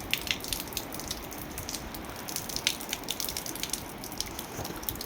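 Steady heavy rain, with irregular sharp ticks of raindrops striking the camera close to the microphone.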